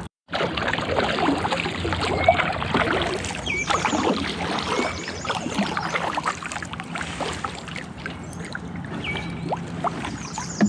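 Water splashing and rushing around a kayak on a river, with a few short high chirps of birds. The sound drops out for a moment at the very start.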